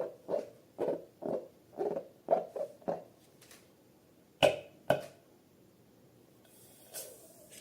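Slime being squeezed and kneaded by hand, making wet squelches about two a second. These stop after about three seconds, then two sharp clicks follow close together.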